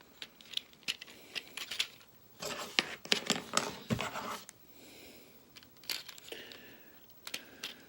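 Plastic transforming-robot toy parts clicking and rattling as they are handled and moved into place, with a busy run of clicks in the middle.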